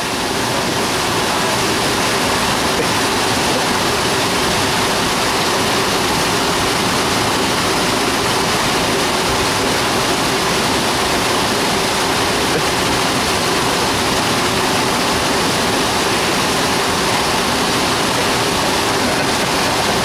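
Steady rushing of river water pouring over a small waterfall and through rocky rapids.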